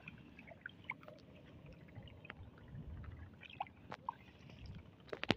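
Faint water sloshing and gurgling in shallow water, with a few soft clicks about four seconds in and again near the end.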